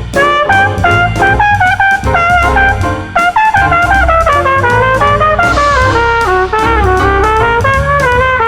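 Jazz combo playing an instrumental break: a horn solos a quick, moving melody over piano, walking bass and drum kit, with a cymbal crash about five and a half seconds in.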